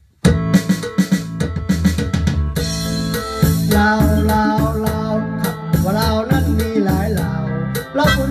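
Korg Pa-series arranger keyboard playing an instrumental intro: a drum-kit rhythm with bass starts abruptly just after the start, and a wavering melody line joins about three and a half seconds in.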